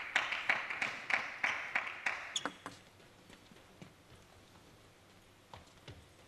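Audience applause with a rough beat of about three claps a second, dying away about two and a half seconds in. A few faint knocks follow in the quiet.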